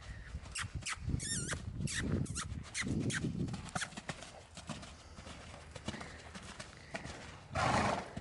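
Horse's hooves thudding and clopping irregularly on arena sand as a loose chestnut horse trots and canters. A short rush of noise near the end is the loudest sound.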